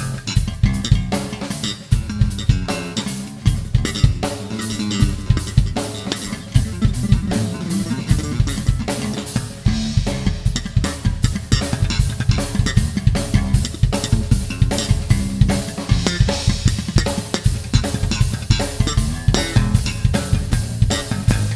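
Solo drum kit played fast and densely: rapid strokes on bass drum, snare and toms, with cymbals washing in about three-quarters of the way through.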